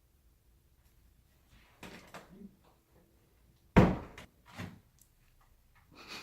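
Soft knocks about two seconds in, then one loud thump nearly four seconds in and a softer knock just after it.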